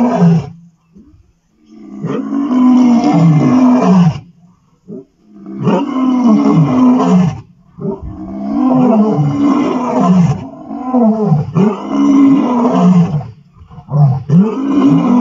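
Male lion roaring: a series of loud, rising-and-falling calls in bouts of a few seconds each, broken by short pauses.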